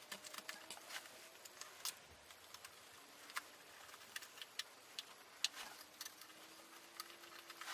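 Faint, scattered small clicks and taps of the iMac's memory access door and its screw being handled and fitted back on.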